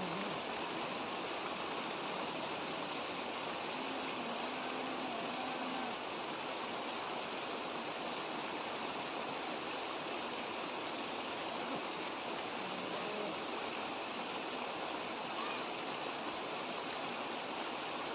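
Small stream rushing through a cascade of white water: a steady, even rush that does not change.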